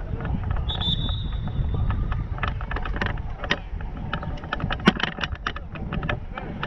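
Wind buffeting the microphone, giving a steady low rumble, with scattered clicks and knocks of handling throughout, the sharpest a little before the five-second mark. A brief high tone sounds about a second in.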